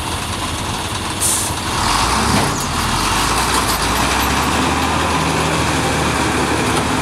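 FAW truck's diesel engine pulling hard under load up a steep hairpin, its exhaust smoking black, after a short hiss of air from the brakes about a second in. The engine note rises and then holds steady and loud.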